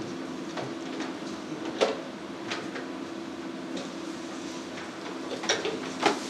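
A few sharp knocks and clicks over a steady ventilation hum, the loudest knock just under two seconds in and two more close together near the end.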